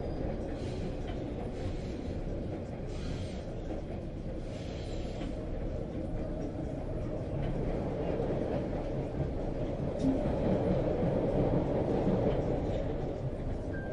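Steady low rumble of a passenger train running on the rails, heard from inside the carriage, growing a little louder about ten seconds in.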